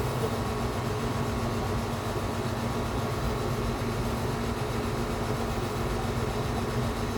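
Steady low mechanical hum with a constant drone and even noise over it.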